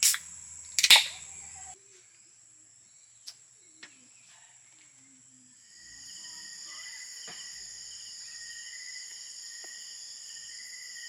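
Two sharp bangs less than a second apart, over a steady high-pitched night insect chorus; the chorus drops out for a few seconds, then comes back louder about six seconds in.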